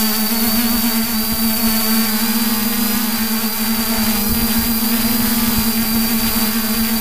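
3DR Iris+ quadcopter's electric motors and propellers humming steadily in flight, with a thin high whine above the hum.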